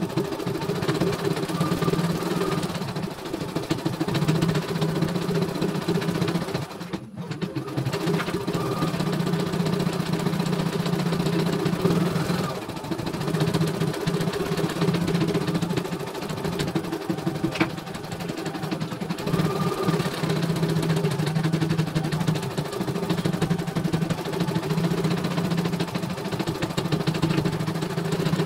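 CNY E900 computerized embroidery machine stitching a test design at high speed, its needle mechanism running with a rapid, steady clatter and hum that drops out briefly about seven seconds in.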